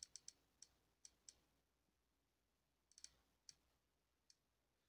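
Faint, irregular clicks from an iPhone's touchscreen interface as settings are tapped in: several in quick succession in the first second or so, a few more about three seconds in and one near the end.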